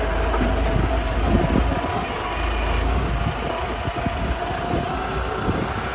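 Self-loading concrete mixer's engine running steadily, with a low rumble, a thin steady whine and many small irregular knocks and rattles.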